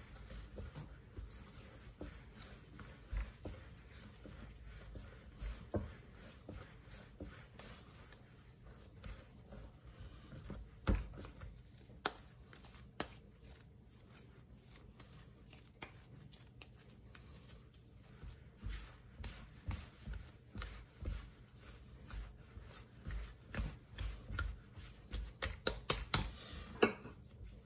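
Hands kneading and rounding balls of soft bread dough on a marble countertop: faint, irregular pats and taps of palm and dough against the stone, coming faster and louder in the last several seconds.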